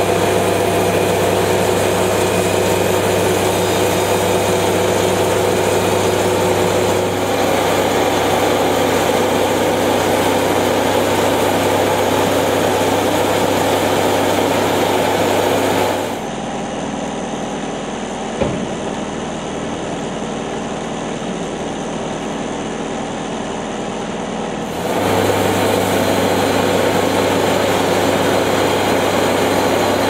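A portable band sawmill running: its engine hums steadily while the band blade cuts along a log. A little past the middle the sound drops for several seconds to a quieter, duller running, with one sharp knock, then the full engine sound returns.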